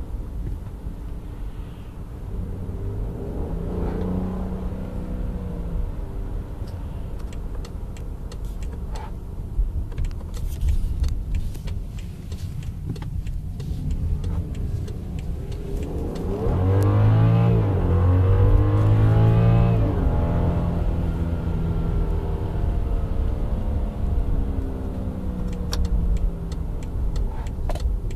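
BMW 535i F10's turbocharged 3.0-litre straight-six heard from inside the cabin under acceleration. The engine note swells twice, a smaller surge a few seconds in and the loudest one about two-thirds of the way through, then settles back.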